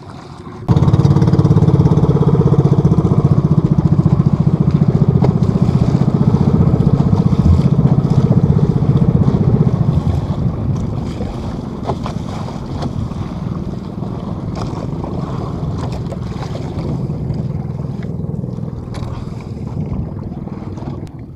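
Small gasoline engine of an outrigger fishing boat (bangka) under way, with water and wind noise. It picks up sharply about a second in to a loud, steady rumble, then eases a little about halfway through.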